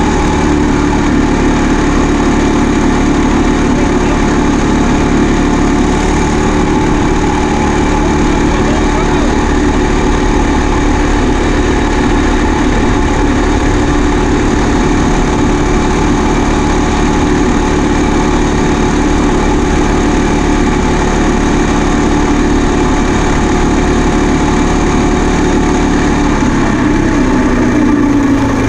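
Harvest machinery's engine running steadily, its pitch dropping in the last couple of seconds as it slows.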